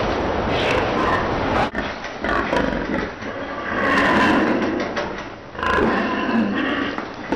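Pigs squealing and grunting over a steady, noisy barn din, with the loudest pitched squeals about four seconds in and again near the end.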